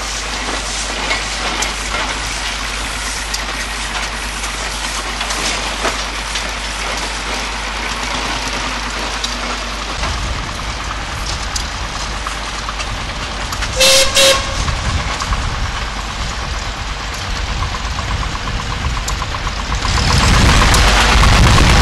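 Old tractors and steam traction engines running together in a steady mixed engine noise. About fourteen seconds in there is a short, loud steam whistle blast in two quick pulses. Near the end a tractor engine runs louder and deeper.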